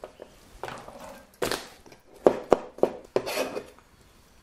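Kitchen knife chopping onion on a plastic chopping board: a run of irregular sharp knocks on the board, stopping about a second before the end.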